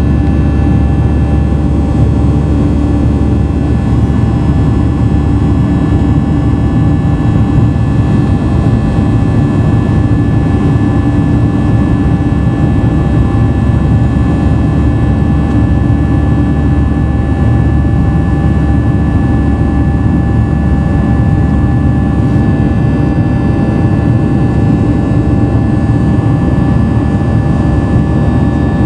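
Cabin noise of a Boeing 737-800's CFM56-7B turbofan engines during the climb after takeoff, heard from a seat beside the engine: a loud, steady rumble and rush with several steady high tones over it.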